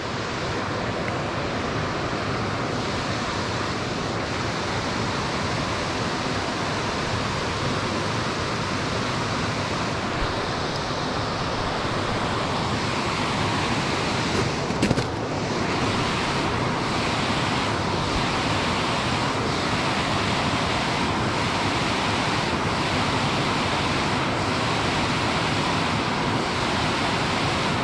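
Water spilling over a small concrete dam spillway: a steady rushing.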